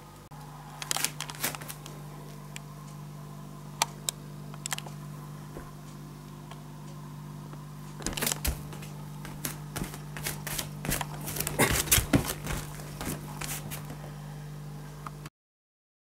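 Scattered sharp clicks and rustles over a steady low hum, thickening into a dense run of clicks in the second half, then the sound cuts off suddenly near the end.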